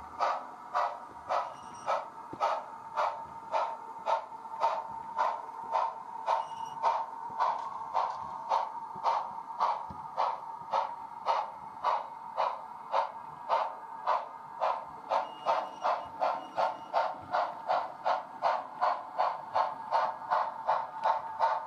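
Steam locomotive chuffing from the DCC sound decoder of a Bachmann 2-8-0 Consolidation model, an even beat of about two to three chuffs a second that quickens slightly as the train runs.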